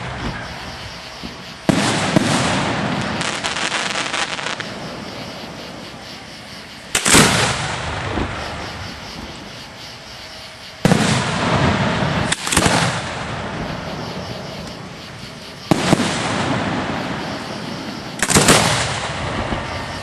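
Fireworks shells bursting overhead: about six loud booms a few seconds apart, each trailing off in a rumbling echo. After the second one there is a spell of crackling.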